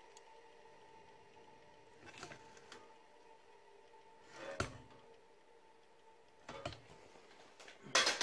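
Handling noise: cut sheet-metal electronics casings knocking and rustling as they are turned over in a gloved hand, a few short knocks spread through, the loudest near the end, over a faint steady hum.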